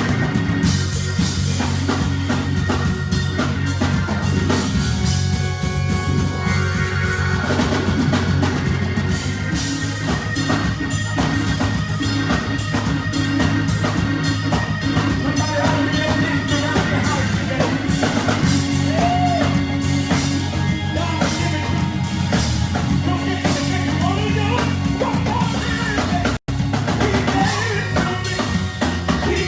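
Gospel praise and worship music: drum kit and bass playing under singing. The audio cuts out for an instant late on.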